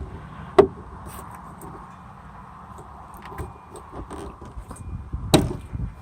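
Metal clicks and knocks as a lift gate's gas support strut is worked off its ball-stud mount, with a sharp snap about half a second in and a louder knock near the end as the gate settles onto a wood block.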